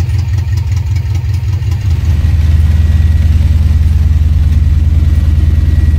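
Dodge D50 compact pickup's engine idling steadily, getting louder about two seconds in.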